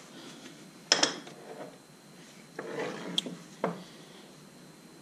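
Aluminum bait mold handled on a wooden workbench: a sharp knock about a second in, then a scrape of metal sliding on wood, a click and a second knock.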